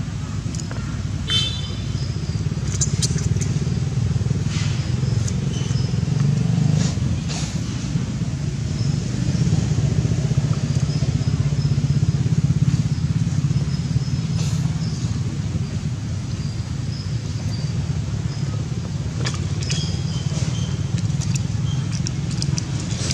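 A steady low drone of a running motor, with a few faint short high squeaks and clicks over it.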